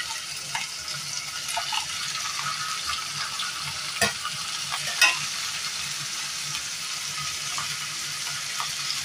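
Pieces of boiled beef finger rib sizzling as they are dropped into hot oil in a frying pan, with a steady frying hiss. Two sharp knocks about four and five seconds in, the second the louder.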